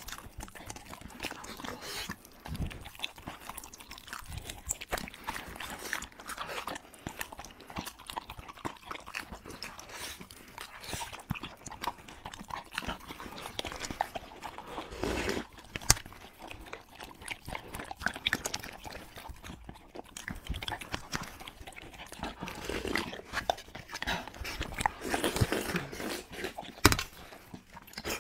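Close-up eating sounds from a beagle and a person: wet chewing, smacking and licking of meatball, with irregular clicks of tongue and food against the plates.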